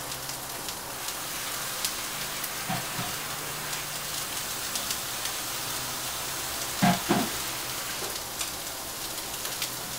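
Chopped onion and garlic sizzling in hot oil in a wok: a steady frying hiss with a few light clicks, and a brief low sound about seven seconds in.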